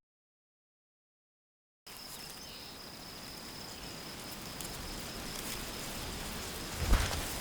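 Dead silence for about two seconds, then a countryside ambience comes in: a steady high insect trill over a soft outdoor hiss, slowly growing louder, with a single footstep-like knock near the end.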